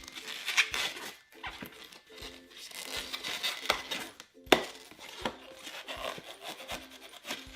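Latex modelling balloon (a soft, partly deflated 160) being handled and twisted as its two ends are tied together into a loop: rubbing, crinkling and short squeaks, with a sharp snap about four and a half seconds in.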